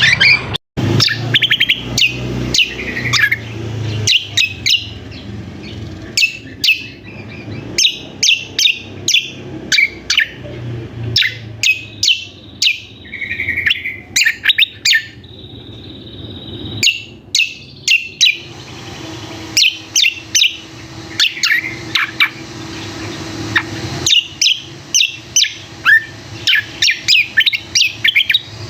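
Cucak kombo (kecial kombo) calling in dense, noisy runs of short, sharp chirps with brief pauses between runs. This is the lure call that bird keepers play to draw males or to prompt a reluctant bird to sing.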